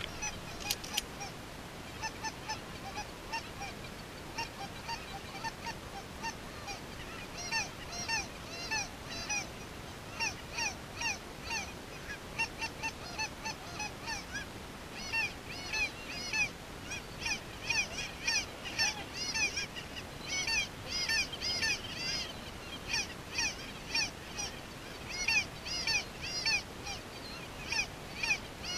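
A flock of geese calling, many short honks that rise and fall in pitch, overlapping and growing thicker about halfway through.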